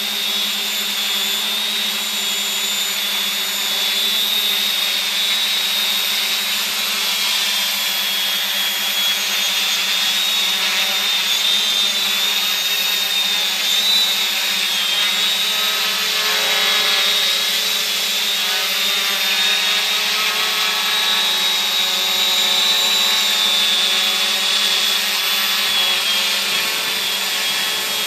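Quadcopter's electric motors and propellers running as it hovers close by: a steady buzz with a high, slightly wavering whine.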